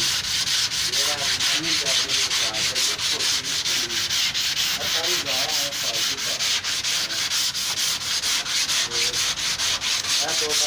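Hand sanding: rhythmic rasping strokes of abrasive on a surface, about four a second, going on without a break.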